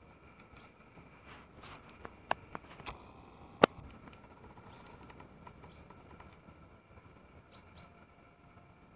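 Quiet outdoor ambience with a few sharp clicks between two and four seconds in, the loudest about three and a half seconds in, and faint short high chirps from small birds scattered throughout.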